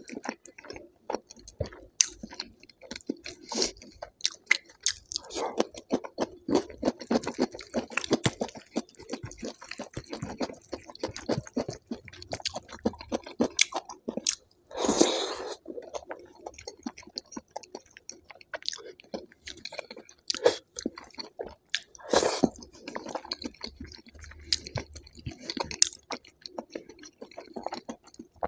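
Close-miked eating sounds: chewing a mouthful of dal and rice, with many small mouth clicks and a few louder bites, the longest about halfway through.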